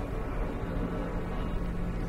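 Low, droning soundtrack music: held synth-like notes over a steady low rumble, with a deeper held note coming in under a second in.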